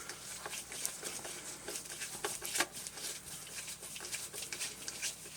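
Faint, irregular clicks and scrapes of a small Phillips 00 screwdriver turning tiny screws out of the plastic back of an Icom ID-5100 radio's display unit.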